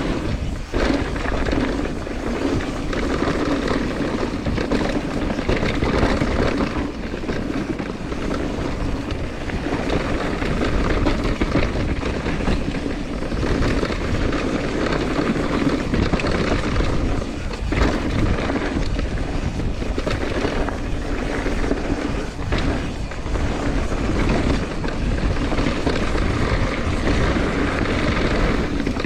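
Wind rushing over the microphone and mountain bike tyres rolling fast over a dusty, rocky dirt trail: a steady loud rumble and hiss.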